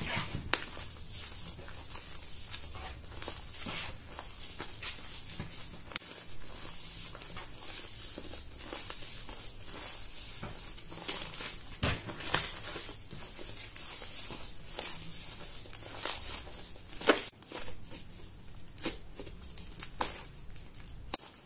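Fluffy slime made of white glue and shaving cream being stretched, folded and squeezed by hand, giving off irregular small clicks and pops, with a few louder snaps.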